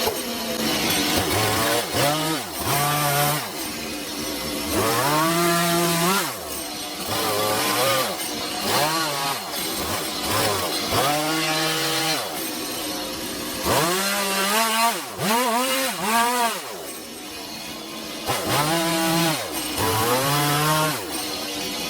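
Gas chainsaw cutting into a wooden stump while carving, its engine revving up and dropping back over and over, about once a second.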